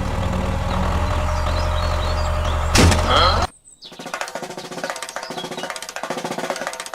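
A steady, low-pitched droning hum that cuts off abruptly about three and a half seconds in. It is followed by light, rhythmic percussive music.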